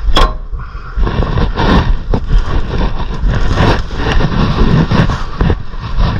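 Metal knocks and scraping as a new brake rotor is slid onto the wheel hub, several sharp clanks over a steady low rumble.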